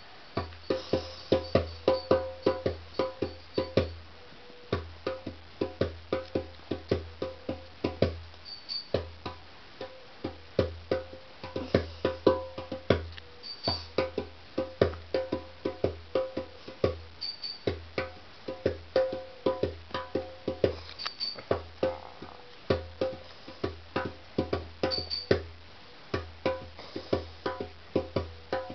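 Djembe drumming: a fast, steady repeating rhythm of sharp hand strokes over deep bass notes, with a few short pauses. A short, high ping sounds about every four seconds.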